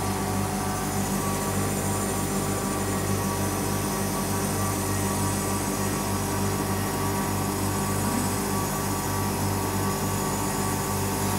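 Refrigeration unit with its Copeland ZR40 scroll compressor running after a condenser replacement, giving a steady, even hum.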